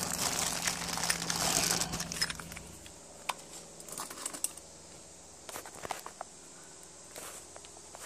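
A plastic bag crinkling as a hand pushes into a bin of old small-engine carburetors, then scattered clicks and light knocks of metal parts being picked through. A faint steady hum fades out about three seconds in.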